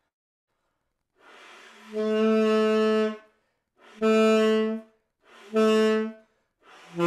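Vintage Selmer Balanced Action tenor saxophone blown with an open throat and relaxed bottom lip: three held notes at the same pitch, each preceded by a soft rush of air, then a lower note starting near the end. The full, rich tone is meant to show playing with no restriction in the airstream.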